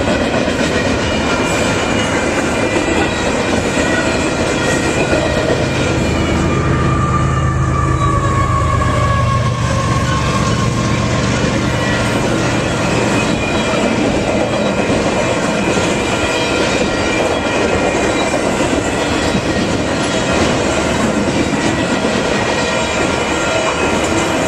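Long Union Pacific intermodal freight train rolling past, its cars' wheels running loud and steady on the rails, with thin high tones held above the rumble. About a third of the way through, a deeper drone and a slowly falling whine swell and then fade.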